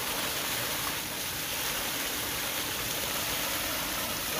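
Heavy stream of water gushing from a large pipe, splashing over a cow and onto the ground: a steady rushing and splashing.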